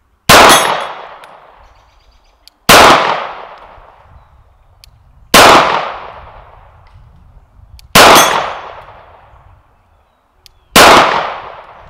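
Five 9mm pistol shots from a Glock 19, fired slowly about two and a half seconds apart, each trailing off in a long echo.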